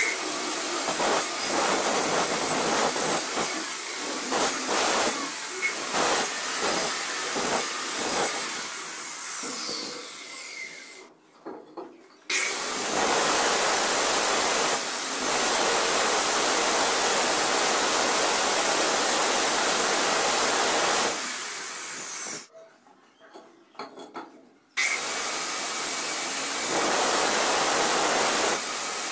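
Angle grinder with a diamond blade grinding the edge of a sink cutout in a granite countertop, with uneven strokes as it bites into the stone. It stops twice and starts up again each time.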